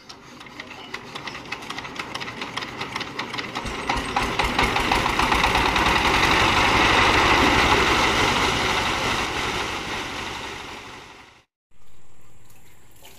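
Single-cylinder diesel engine on a wheeled farm machine being hand-cranked, the strokes quickening until it fires about four seconds in and runs loudly with a rapid, even thudding beat. It cuts off abruptly near the end, after which a fainter sound is left.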